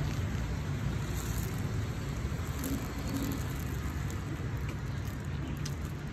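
Steady outdoor street background noise: a constant low rumble with an even hiss above it, as of road traffic.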